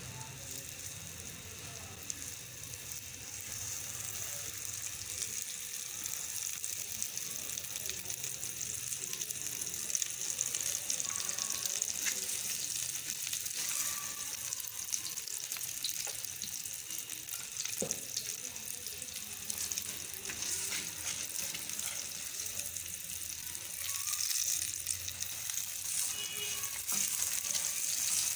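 Ghee sizzling as an egg paratha fries on a hot tawa, a steady hiss that grows a little louder after the first few seconds.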